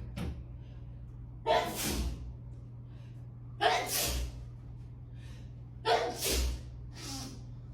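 A person sneezing repeatedly in a sneezing fit: three loud sneezes about two seconds apart, with a smaller one at the start and a weaker one near the end. The fit is put down by the uploader to allergic rhinitis.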